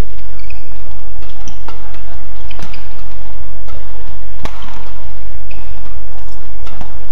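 Badminton racket strikes on a shuttlecock in a fast doubles rally, a sharp crack every one to two seconds with the loudest about halfway through, and short shoe squeaks on the court in between. A steady low hum runs underneath.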